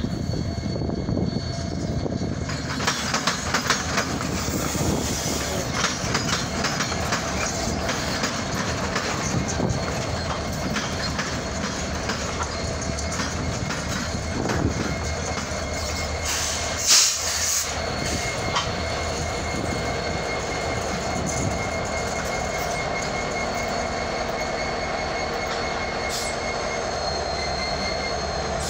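Union Pacific diesel freight locomotives rolling slowly past close by: engine rumble and wheels clicking over the rail joints, then a thin steady wheel squeal in the second half. A brief loud burst of noise cuts in about seventeen seconds in.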